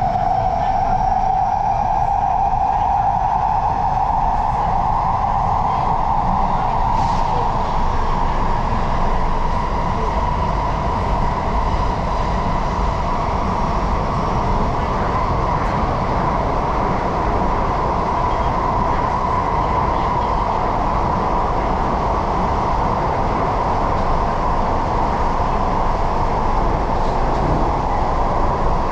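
Singapore MRT electric train running, heard from inside the carriage: a steady rumble of wheels on rail with a motor whine that rises in pitch over the first several seconds, then holds steady.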